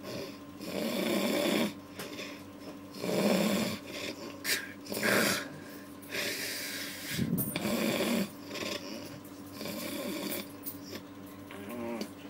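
Heavy snoring, one long snore about every two seconds, over a faint steady hum.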